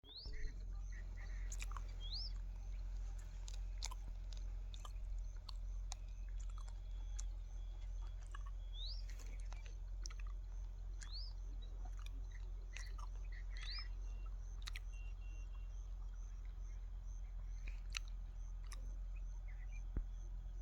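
A bird repeating a short rising whistled call every two to three seconds, over a steady low rumble with scattered sharp clicks.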